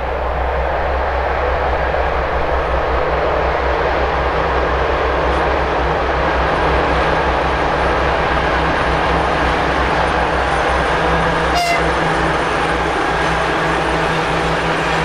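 Twin-section 2M62K diesel locomotive's two-stroke diesel engines working hard, hauling a heavy freight train past: a loud, steady engine sound with a deep pulsing low end.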